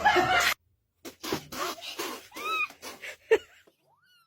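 A domestic cat making several short meows with knocks between them. The clearest is a rising-and-falling call about two and a half seconds in, and near the end there is a longer call that rises and then falls.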